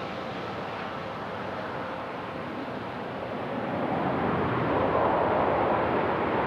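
Bombardier Global 7500 business jet's twin GE Passport turbofans, a steady jet rush that grows louder from about halfway through and peaks as the jet passes close.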